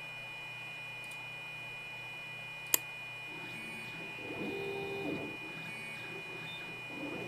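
Stepper motors of a TinyBlue desktop CNC router driving the machine's axes: a steady electronic hum and whine, one sharp loud click a little under three seconds in, then from about three and a half seconds a louder motor whine that shifts in pitch as the carriage moves.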